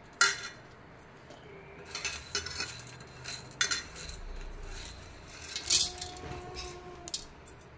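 Stainless steel mixer-grinder jar being handled as onions, green chillies and coriander are dropped in: half a dozen scattered knocks and clinks of metal.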